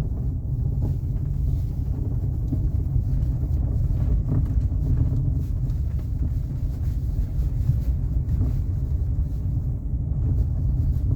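Cabin noise of a Chery Tiggo 8 Pro Max driving over a rough road: a steady low road rumble with a few scattered knocks. The owner takes the knocking for a faulty steering rack.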